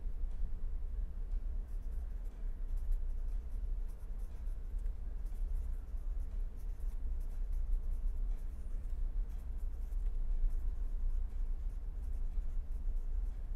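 Felt-tip marker scratching on paper as a line of handwriting is written, in short irregular strokes, over a steady low hum.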